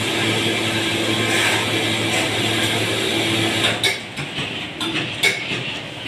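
Ceiling-fan stator coil winding machine running with a steady mechanical hum. The hum cuts off about two-thirds of the way through, and a few sharp clicks and knocks follow.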